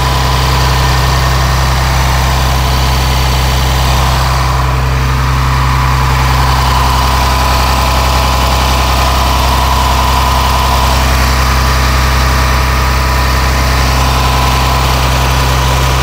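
Cummins ISC 8.3-litre inline-six turbo diesel in a rear-engine school bus, idling steadily, with a thin high whine over the low engine note.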